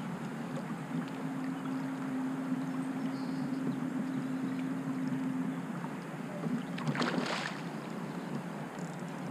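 Water and wind noise around a kayak while a hooked smallmouth bass is played in, with a steady hum for the first few seconds. About seven seconds in, a short, loud splash as the fish thrashes at the surface beside the kayak.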